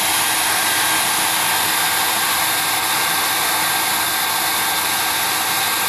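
Handheld hair dryer running steadily on hot air, a loud, even rush of air with a faint steady whine.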